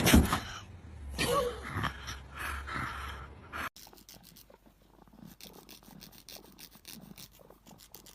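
A dog panting, with a short whine about a second and a half in. After about four seconds the sound cuts off suddenly, leaving only faint small clicks.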